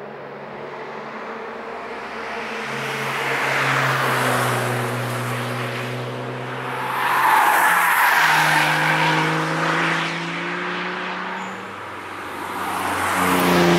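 Cars on a race track passing close by at speed one after another, three passes, loudest about halfway through. The engines pull hard, and the later two rise in pitch as the cars accelerate.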